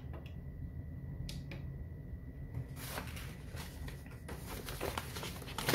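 A few sharp clicks from the front-panel buttons of a Kunkin KP184 electronic load being pressed. From about halfway through, the pages of a thick printed manual rustle as they are turned.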